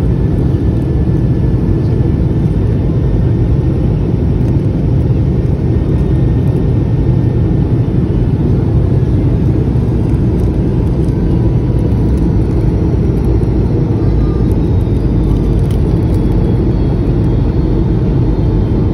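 Steady low rumble of cabin noise inside a Boeing 717-200 descending to land: airflow and its two rear-mounted Rolls-Royce BR715 turbofans, with faint steady whining tones above the rumble.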